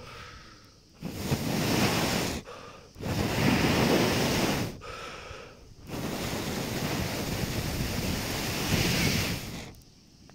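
A person blowing on the glowing ember tip of a charred stick: three long breaths of rushing air hitting the microphone, the last one the longest.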